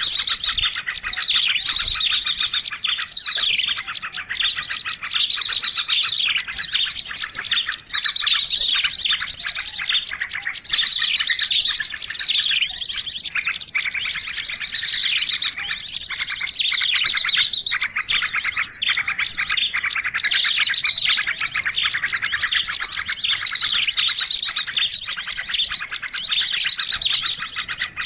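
Dense, overlapping chorus of many small songbirds chirping, with very rapid trills and quick falling notes that never let up: a bird-lure recording used to attract small birds.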